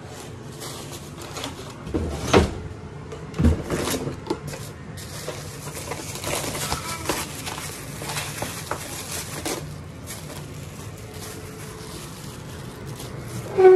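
Household handling noises: scattered knocks and clicks with light rustling as things are picked up and moved about, with a sharper knock about two seconds in and another about three and a half seconds in.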